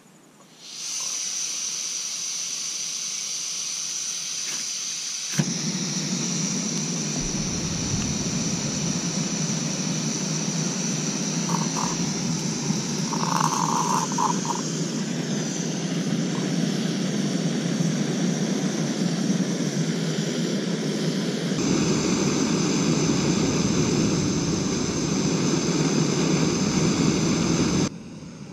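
Small MSR backpacking stove on an IsoPro isobutane canister: gas hissing from the opened valve, then catching about five seconds in and burning steadily with a fuller rushing sound.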